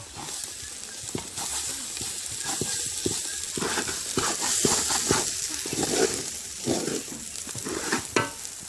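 Rice sizzling as it is fried dry in oil in a pot, with a spoon scraping and knocking against the pot as it is stirred.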